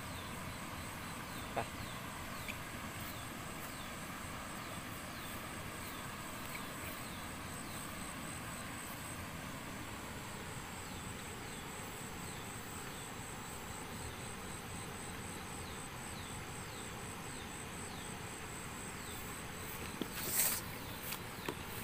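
Rural field ambience: a steady, high-pitched insect drone with short falling chirps repeating about twice a second. A couple of sharp, loud noises stand out near the end.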